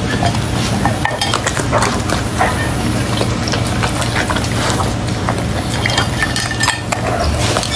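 A dog eating raw meat off a ceramic plate, heard close up: wet chewing, licking and smacking, with a rapid run of small clicks as its teeth and tongue knock against the plate.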